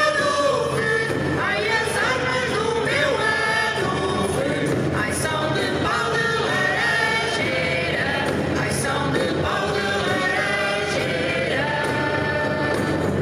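A folk singing group's voices singing a traditional Portuguese song together.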